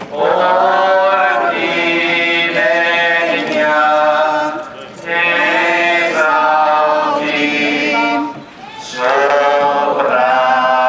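Voices singing a hymn in unison without accompaniment, in three long phrases with brief pauses for breath about five and eight and a half seconds in.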